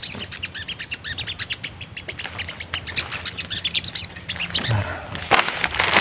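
Small birds chirping in quick, high-pitched runs of short notes: sogon (sogok ontong) calls. Near the end, dry leaf litter rustles and crunches underfoot.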